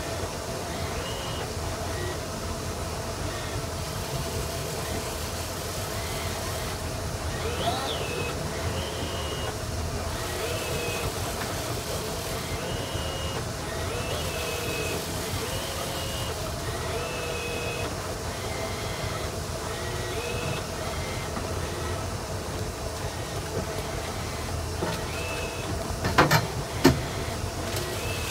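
A boat's engine running steadily, with faint short chirping tones repeating every second or two. Two sharp knocks come close together near the end.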